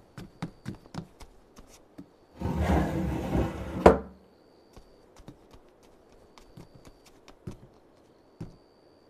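Quick footsteps on a wooden floor. About two and a half seconds in comes a loud rustling burst lasting a second and a half, which ends in a sharp knock. Scattered faint taps follow.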